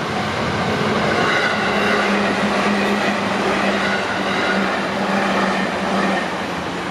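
Electric train of the JR Tokaido Main Line running through a level crossing: a loud, steady rush of wheels on rail with a humming drone. It swells about a second in and eases near the end.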